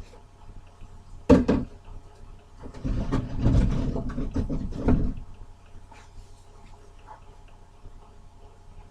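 A sharp knock, then about two seconds of heavy clattering and bumping, like things being moved or handled, over a low steady hum.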